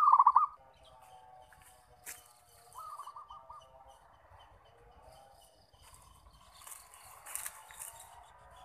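Zebra dove (perkutut) cooing: a loud run of quick, evenly pulsed notes right at the start, then a fainter run about three seconds in.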